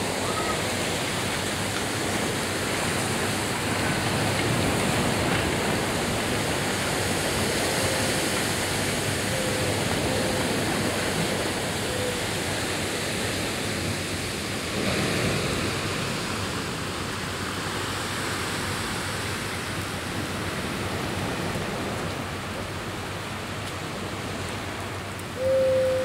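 Sea surf breaking and washing over the rocks at the foot of the cliff: a steady rushing noise that swells about 15 seconds in. A bird gives a few short hooting calls, the loudest near the end.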